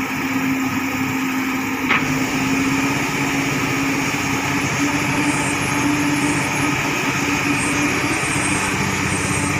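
Komatsu hydraulic excavator's diesel engine running steadily under load as it digs and lifts wet soil, with a single sharp knock about two seconds in.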